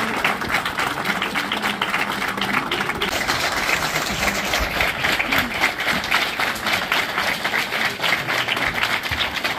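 Audience applauding: many hands clapping in a dense, steady patter throughout.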